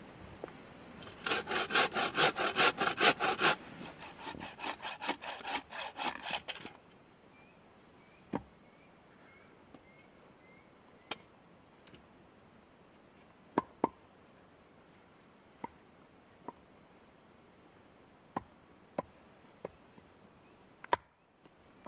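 Bucksaw cutting through wood in quick, even strokes, about four a second, hard at first and then lighter, stopping about seven seconds in. After that come scattered sharp clicks and snaps.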